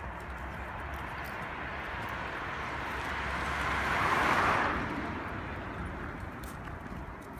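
A car driving past on the street, its tyre and engine noise swelling slowly, loudest about four seconds in, then fading away.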